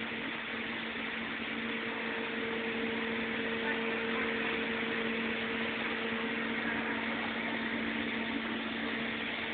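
Refurbished Sullair 16-100 air compressor running steadily: an even mechanical hum with a low held tone and a second one an octave above it.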